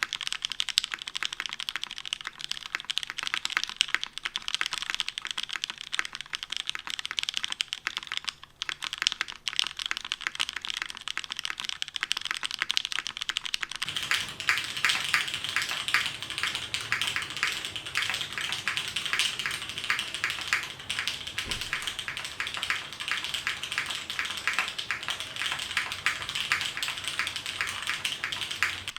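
Steady, fast typing on a custom mechanical keyboard with lubed Cherry MX Black linear switches, an aluminum plate and DCS-profile keycaps: a dense run of keystroke clicks. About halfway through the typing gets louder and fuller.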